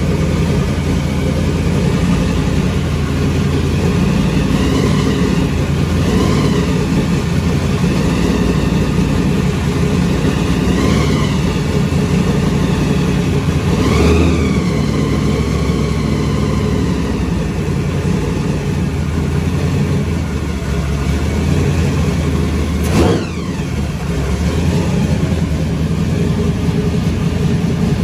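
Supercharged big-block Chevy V8 on Holley Terminator X fuel injection running, its revs rising and falling several times as the throttle is blipped, with a sharp quick blip about three-quarters of the way through.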